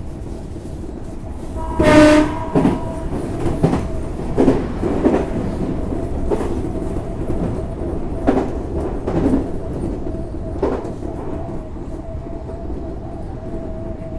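Odakyu 8000 series electric train running, with a thin steady whine and irregular wheel clacks over the rail joints. A short horn blast about two seconds in is the loudest sound.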